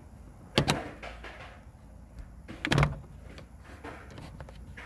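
A plastic cover on a Honda Civic sun visor mount being pried and popped off by hand. There are two bursts of sharp plastic clicks and scraping, about half a second in and again near three seconds in.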